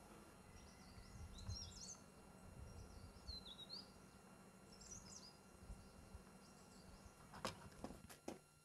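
Faint bird chirping over low background noise: short twittering phrases in the first half and another around five seconds in. A few sharp taps come near the end.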